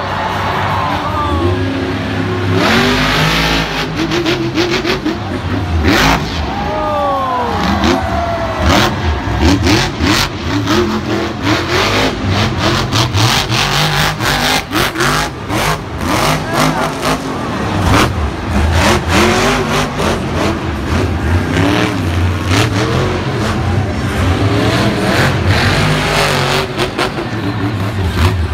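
Monster truck's supercharged V8 revving hard, its pitch repeatedly rising and falling, with many sharp cracks throughout.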